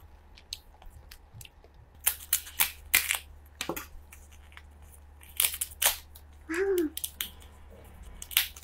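Cooked crab shell being cracked and pulled apart by gloved hands: a run of sharp cracks and snaps about two to four seconds in, more around five and a half to six seconds, and one more near the end.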